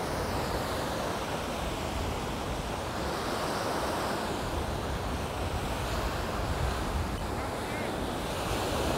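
Surf breaking and washing up a sandy beach in a steady roar, with wind buffeting the microphone underneath.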